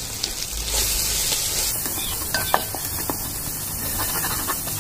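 Prawns and onion-tomato masala sizzling in oil in an aluminium pot while a wooden spatula stirs them, with a few light knocks of the spatula against the pot. The sizzle grows stronger about a second in as the fresh spices and salt are worked in.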